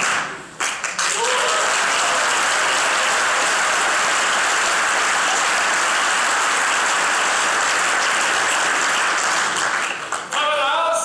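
Audience applauding steadily as a brass band's piece ends. Near the end, the brass band sounds a few notes again.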